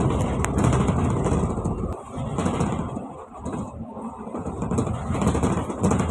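Engine and road rumble heard from inside a moving double-decker bus, steady and loud, easing briefly about two seconds in and again a little after three seconds.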